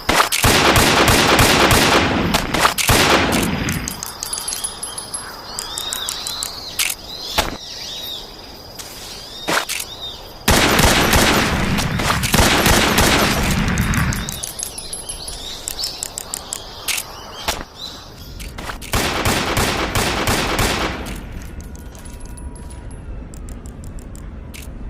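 Gunfire: three long runs of rapid shots packed close together, with single sharp shots in between. Birds chirp faintly in the quieter gaps.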